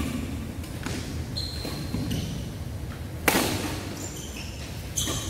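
Badminton rally: rackets striking the shuttlecock about five times, the hardest hit a little past halfway and echoing in the hall, with short high squeaks of shoes on the court.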